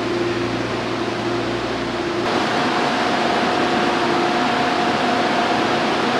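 Steady rushing noise with a mechanical hum, typical of Hong Kong MTR train or station ambience. About two seconds in, the sound changes abruptly, growing a little louder and brighter with a higher steady hum.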